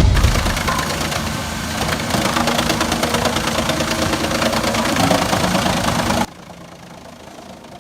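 A heavy machine's engine running loudly with a fast, even pulse, cutting off abruptly about six seconds in to a much quieter engine hum.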